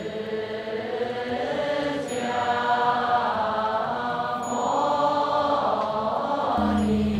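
Buddhist nuns chanting together in unison, long drawn-out notes of a mealtime verse with palms joined before eating. A steady low hum comes in near the end.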